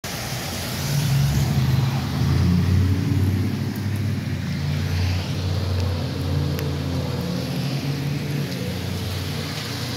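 Rain falling on a wet street with a motor vehicle's engine rumbling close by, loudest a second or so in and easing off over the following seconds.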